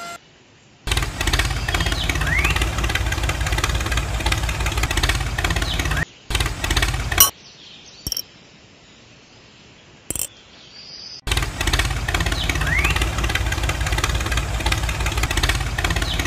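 Small electric motor of a homemade battery-powered toy tractor running, loud and fast-pulsing. It stops about 6 seconds in after a few short restarts, two short clicks follow, and it runs again from about 11 seconds in.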